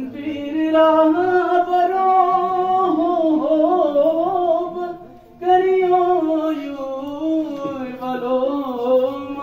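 A boy singing solo and unaccompanied into a handheld microphone: long held notes with wavering, ornamented turns, broken by a short breath about five seconds in.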